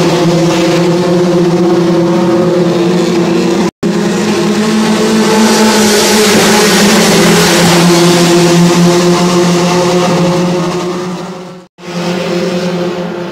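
Racing car engine running at high revs, a loud steady drone with almost no change in pitch. It breaks off twice for an instant, about four seconds in and near the end, and is quieter after the second break.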